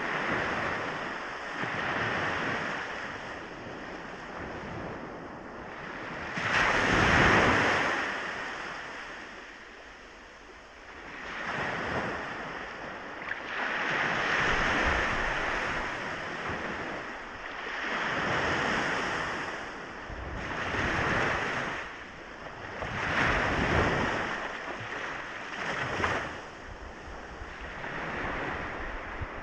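Ocean waves breaking and washing up on a beach, in swells of surf that rise and fade every few seconds; the biggest comes about seven seconds in.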